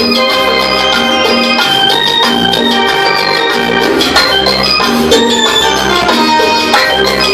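Loud dance music played over a party DJ sound system: a melody of sustained pitched notes over a steady, repeating bass beat.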